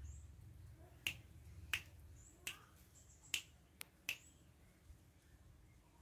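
Fingers snapping six times at an uneven pace over about three seconds, sharp and fairly faint, to call a young spotted dove.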